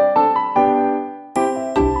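Background music played on a keyboard, a tune of struck notes. A held chord fades out, then a new phrase starts with a bright note about 1.4 s in, and bass notes come in near the end.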